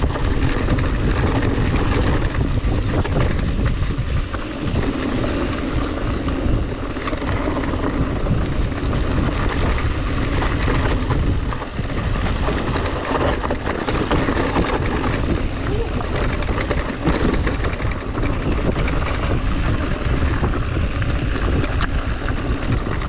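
Wind buffeting the microphone, with the tyre and frame rattle of a mountain bike riding a dirt trail.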